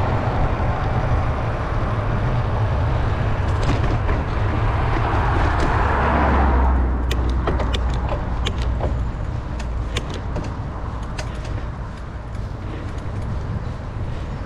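A car passes close by on the road, swelling and fading over a steady low rumble from about five to seven seconds in. Afterwards the road noise drops and scattered sharp clicks and ticks follow.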